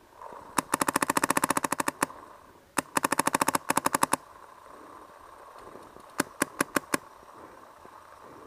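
Empire Axe electronic paintball marker firing rapid strings of shots, about a dozen a second: two bursts of over a second each, then four quick single shots later on.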